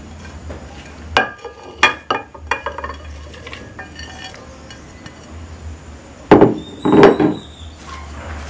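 Kitchenware clinking and knocking as chopped red onion is tipped into a blender jar. A few light clinks come in the first few seconds, then two louder knocks about six and seven seconds in, over a faint low hum.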